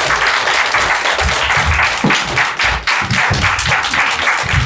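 Audience applauding, a dense steady clatter of many hands clapping, with music playing underneath.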